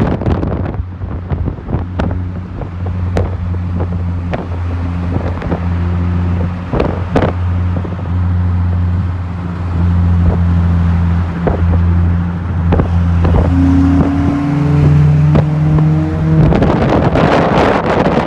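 Car engine running with a steady low hum and scattered clicks; its pitch steps up about two-thirds of the way through, and a loud rushing noise, like wind on the microphone, takes over near the end.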